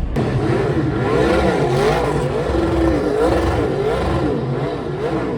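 A car engine revved over and over, its pitch rising and falling in a steady rhythm about one and a half times a second over a constant low drone.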